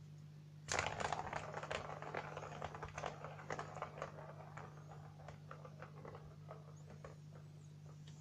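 Rapid plastic clattering of a ball running around a cat's circular track toy, starting suddenly about a second in and thinning out over several seconds as it slows. A steady low hum runs underneath.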